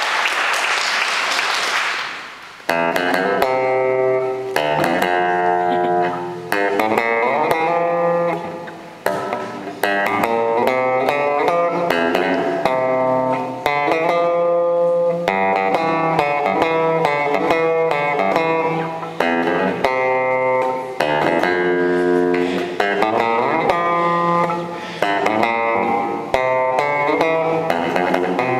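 Electric bass guitar played solo: plucked notes and chords in phrases, with short pauses where the notes ring out and fade. Applause dies away in the first two seconds as the playing begins.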